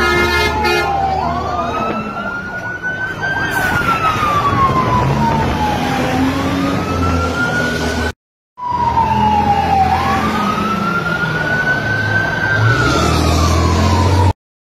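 Fire engine siren wailing, its pitch slowly rising and falling over a few seconds per sweep, over a low engine hum. A horn blares briefly at the very start, and the sound cuts out twice for a moment.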